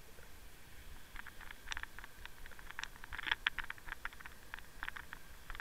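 Underwater clicking and ticking as a bucktail jig is bounced and dragged over a bed of mussel shells: many sharp, irregular clicks starting about a second in and bunching most thickly midway, over a steady hiss.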